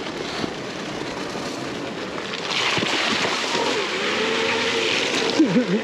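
An electric dirt bike riding a dirt trail: steady wind and tyre noise with a faint wavering motor whine. The rushing hiss grows louder about halfway through as the bike rolls into mud and puddles.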